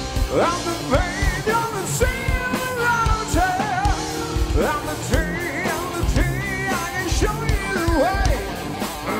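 Hard rock band playing live: a male lead singer sings with vibrato over electric guitar, bass guitar and a drum kit.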